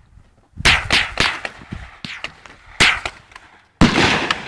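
Three gunshots on a shooting range, each a sharp crack that trails off: one about half a second in, one near three seconds, and the loudest just before the end.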